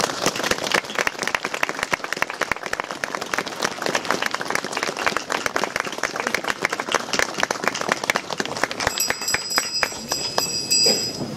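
Audience applauding, dense and irregular, dying down near the end, when a few high ringing tones join in.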